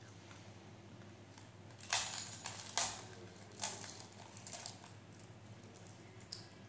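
Crisp, flaky Dhakai paratha crackling and crunching as it is torn apart by hand, its dry layers crumbling into pieces. It comes in several short bursts, the loudest about two seconds in and again near three seconds, with smaller ones after.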